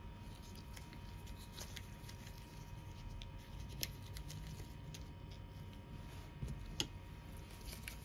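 Faint handling noise of small parts and wire on a workbench: light ticks and rustles, with two sharper clicks at about four and seven seconds, over a steady low hum.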